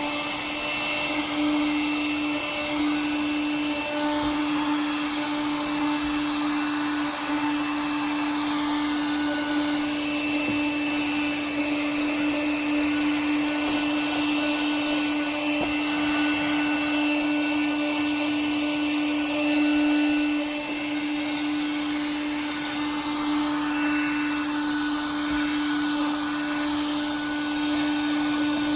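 Small 12 V car vacuum cleaner, with its brush attachment fitted, running steadily: a constant motor whine over the rush of sucked air as it picks up dust and sand.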